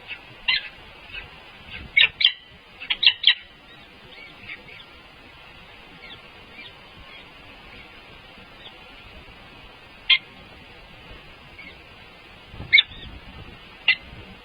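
Short, sharp bird chirps in scattered clusters, a quick run of four or five near the start and single calls later, over a steady background hiss.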